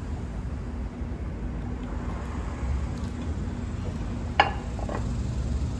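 Steady low rumble of outdoor street traffic, with a single sharp clink a little after four seconds in as a plate is set down on another plate.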